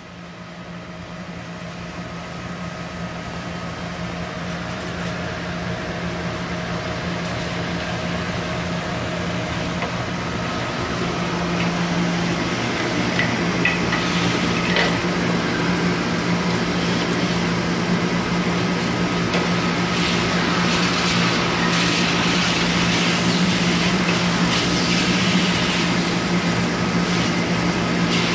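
Ruwac FRV110 explosion-proof industrial vacuum running with a steady drone that grows louder over the first dozen seconds. From about halfway, a rushing hiss joins it as the hose nozzle sucks food dust off packaging machinery.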